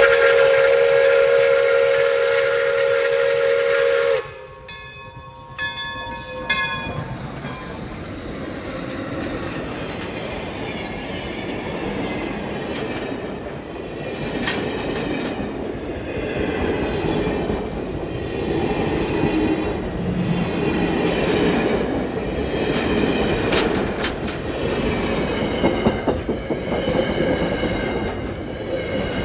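Whistle of Pere Marquette 1225, a 2-8-4 Berkshire steam locomotive: one long chord-like blast of about four seconds, then a few short fading toots. After that the train runs by with a steady rumble and the clickety-clack of wheels over rail joints.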